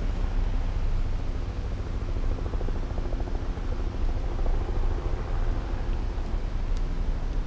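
A line of police SUVs and cars driving past: a steady low rumble of engines and tyres on the road.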